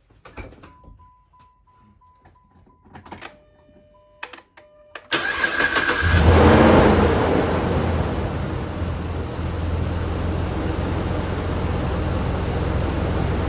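Jeep Liberty engine cranked and started to test a newly fitted ignition coil for a misfire: after a few faint clicks and electronic beeps, the starter engages about five seconds in, the engine catches, revs up briefly and settles into a steady idle.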